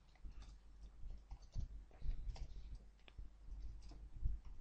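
Scattered, irregular clicks of computer keys and mouse buttons, over a low steady hum.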